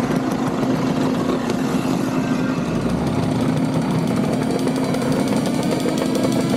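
Classic two-stroke scooters, Vespas and a Lambretta, riding past one after another with their engines running in a rapid pulsing, rattly note. One engine note rises slowly near the end.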